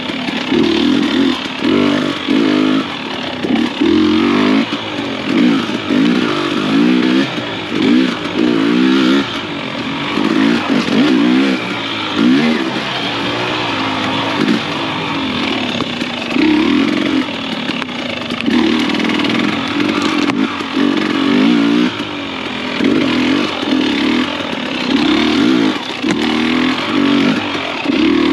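Husqvarna TX300i two-stroke enduro motorcycle engine revving in short, repeated bursts of throttle, its pitch rising and falling every second or so.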